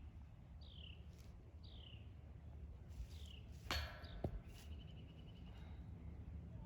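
A bird repeats a short, high, downward chirp about once a second. A little past halfway a sharp metallic clank rings out, with a brief jingling after it: a golf disc striking a metal disc golf basket and its chains.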